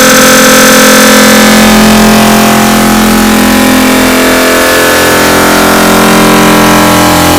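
Sneeze sound effects sped up over and over until they have turned into a loud, steady buzzing drone of many held tones.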